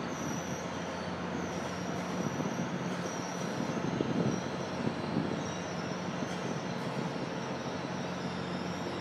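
Amtrak Acela electric trainset pulling out of the station: a steady rumble of wheels on rail with a low hum, swelling briefly about four seconds in.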